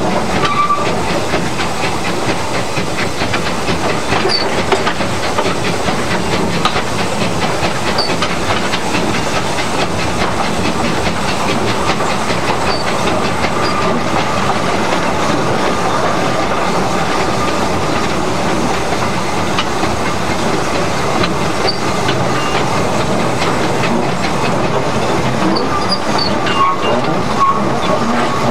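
Fowler steam tank locomotive running, heard from its cab: a steady hiss of steam over the noise of the moving engine and its wheels on the rails.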